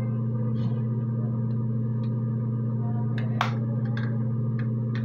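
A steady low hum, with a few faint clicks and taps of a small makeup case being handled about three seconds in.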